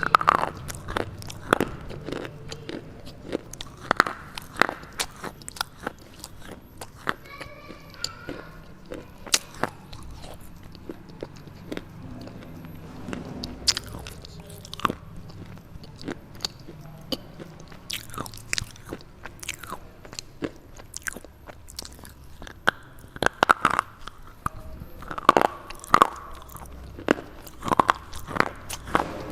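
Dry red slate bar being bitten and crunched close to the microphone: sharp, irregular cracking snaps with chewing in between, busiest near the start and again in the last few seconds.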